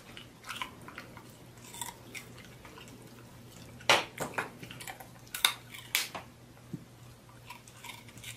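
A dog crunching and chewing carrot pieces: scattered sharp crunches, the loudest few between about four and six seconds in, with fainter chewing clicks around them.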